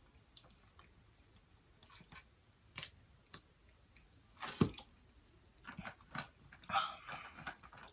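A person eating close to the microphone: scattered, intermittent chewing and lip-smacking clicks, with one sharper smack about halfway through and a run of small wet mouth sounds near the end.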